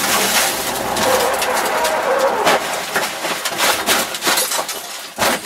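Honda rally car heard from inside the cabin: running and road noise under a clatter of knocks and rattles. Sharp impacts come in the last couple of seconds as the car goes off the road.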